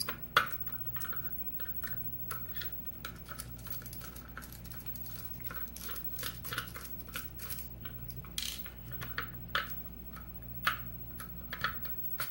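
Scattered light metallic clicks and taps from a lock cylinder being handled and taken out of a bench vise, over a faint steady hum.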